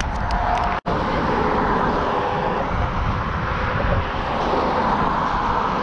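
Steady outdoor roar of road traffic and wind noise on a bridge, with a few light clicks at the start and a split-second dropout about a second in.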